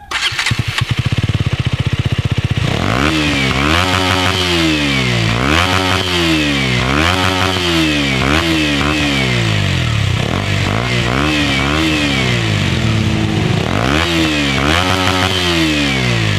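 2017 KTM RC 125's single-cylinder engine breathing through an Akrapovic carbon slip-on silencer. It idles for a couple of seconds, then is revved repeatedly, the revs climbing and dropping back with each blip of the throttle.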